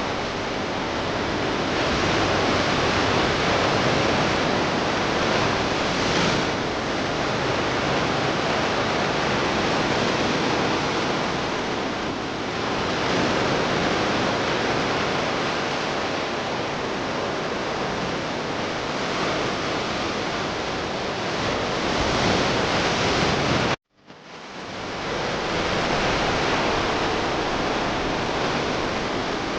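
Sea surf washing steadily onto the beach, a continuous hiss with slow swells. The sound cuts out abruptly about 24 seconds in and fades back up within a second or so.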